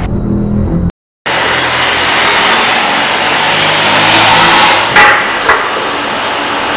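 Loud, even rushing noise, like traffic or wind, building up over a few seconds. It is broken near the end by two sharp knocks about half a second apart. It follows a brief moment of dead silence about a second in.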